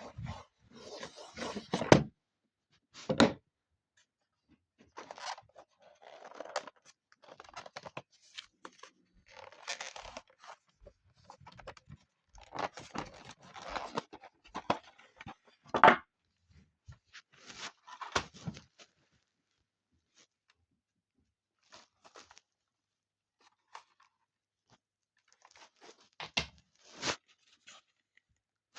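Packaging being opened and handled by hand: irregular bursts of tearing and crinkling with a few sharp clicks and knocks, broken by quiet gaps.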